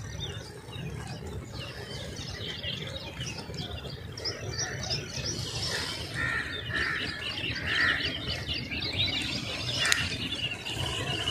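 Small birds chirping, many short calls overlapping throughout, over a steady low rumble. A single sharp click comes about ten seconds in.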